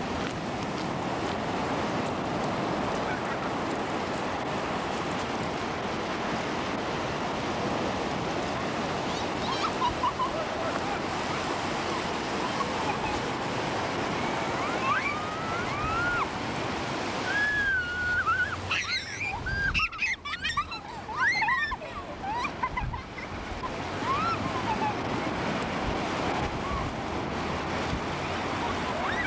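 Ocean surf breaking and washing up the beach in a steady wash. From about 15 to 23 seconds in, it is joined by a run of short, high calls that rise and fall.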